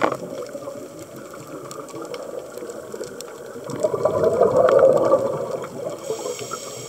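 A scuba diver breathing through a regulator underwater. After a quieter stretch, a loud burst of exhaled bubbles comes about four seconds in, lasts around two seconds and then fades.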